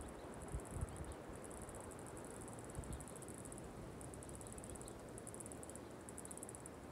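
Insects trilling, a high, rapidly pulsing chorus with short breaks, over a faint low rumble of wind on the microphone.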